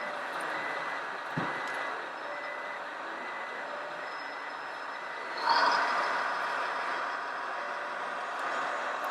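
Steady background noise in a model-vehicle show hall, with a short thump about a second and a half in. A little past halfway comes a louder rush of noise that fades out, fitting an RC excavator's bucket scraping into a pile of sand.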